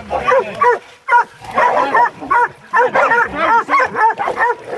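Hog dogs barking hard and fast, the barks overlapping, with a short lull about a second in: dogs baying a boar hog.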